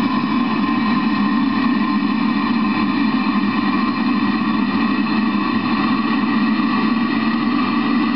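Eberspacher Hydronic D5WZ diesel water heater running steadily: a constant rumble with a steady whine over it.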